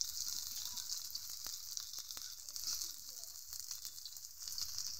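Batter-coated okra strips shallow-frying in oil in an iron kadai: a steady high sizzle with scattered small pops and crackles.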